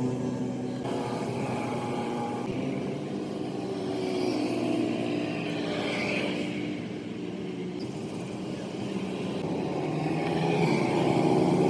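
A vehicle engine running, its pitch slowly rising and falling.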